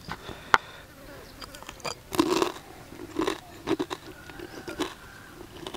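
A person chewing a mouthful of crispy-skin duck larb close to the microphone: short crunching bites, roughly two a second, starting about two seconds in. A single sharp click comes about half a second in.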